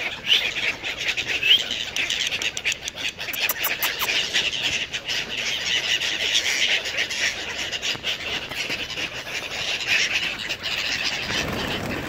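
A flock of birds calling and chirping steadily, with a cluster of sharp clicks about three to four seconds in.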